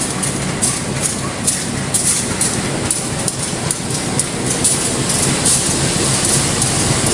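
Indonesian KAI CC 203 diesel locomotive rolling slowly past along the platform as the train arrives. Its engine runs with a steady low rumble, and the wheels give irregular sharp clacks over the rail joints.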